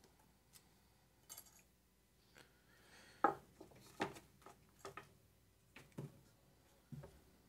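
Faint, scattered clicks and light taps from hands handling small parts and tools, about half a dozen over several seconds.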